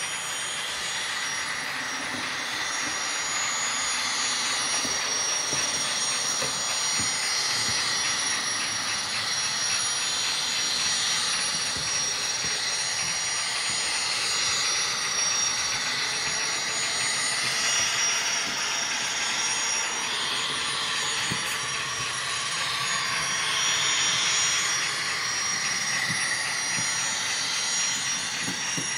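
Model gas turbine locomotive running steadily with a turbine whine and rushing hiss, its freight train's wheels clicking faintly over the rail joints.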